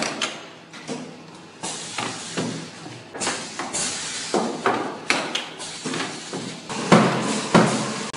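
Small laboratory candy depositing machine running: a string of irregular metallic clunks and knocks, about one every half second to a second.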